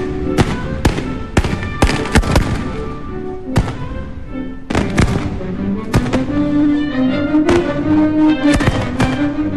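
Aerial fireworks display going off in a fast run of sharp bangs, about two a second, with a short lull near the middle. Music with held notes plays underneath and comes forward in the second half.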